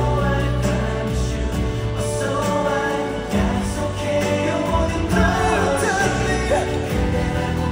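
Live K-pop performance: singing over a band playing through a concert sound system, with steady bass notes under the voices.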